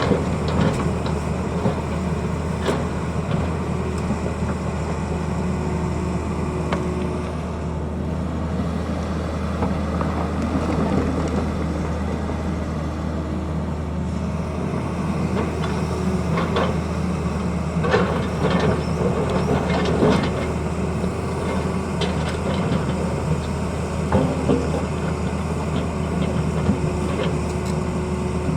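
Tata Hitachi excavator's diesel engine running steadily, with scattered knocks and clanks, several close together about two-thirds of the way through.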